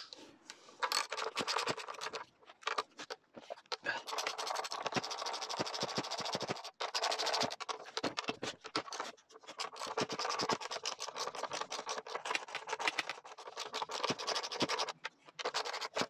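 Socket ratchet clicking as it winds bolts out, in long runs of rapid clicks broken by a few short pauses.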